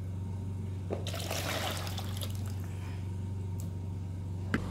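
Water sloshing and trickling in a plastic bowl as hands rinse tomatoes, with a single knock near the end. A steady low hum runs underneath.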